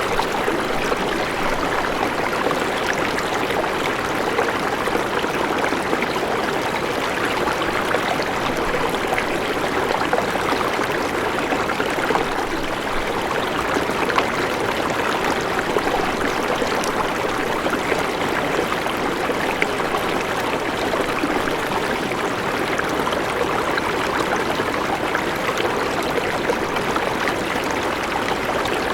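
A river or stream flowing steadily, water rushing and babbling over rocks.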